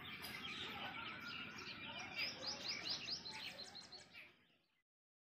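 Small birds chirping and twittering in a dawn chorus, many quick overlapping calls, fading out about four and a half seconds in.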